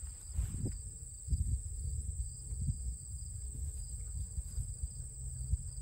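Wind buffeting the microphone in gusts, over a steady high-pitched drone of insects in the grass.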